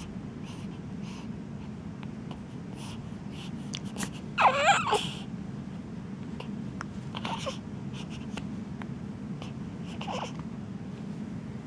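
Baby with hiccups: a short fussing cry about four and a half seconds in is the loudest sound, and brief squeaky hics come about three seconds apart after it, over a steady low room hum.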